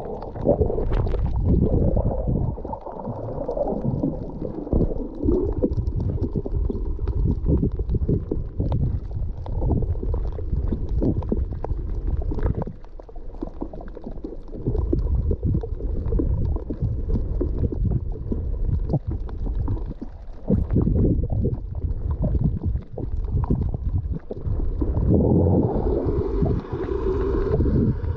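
Water heard underwater: low, muffled sloshing and gurgling that surges irregularly, growing a little brighter near the end.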